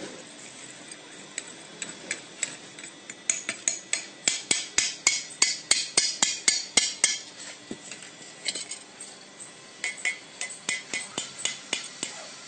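Small hammer striking a casting mould over and over to knock it open around freshly cast metal parts: sharp metallic taps, a quick run of about four a second in the middle and another run near the end.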